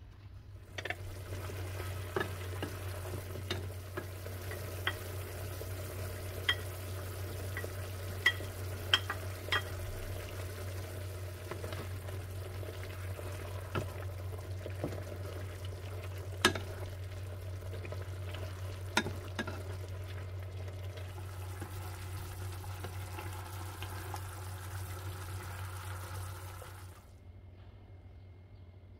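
Chicken pieces sizzling in a soy-sauce gravy in a nonstick frying pan while being stirred with a wooden spatula, which now and then gives a sharp click against the pan. A steady low hum runs under it, and the sizzling stops near the end.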